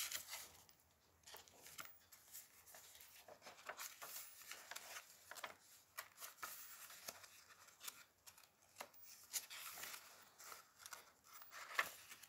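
Pages of a handmade paper and cardstock journal being turned by hand: faint paper rustling with scattered soft flicks and taps, the sharpest one near the end.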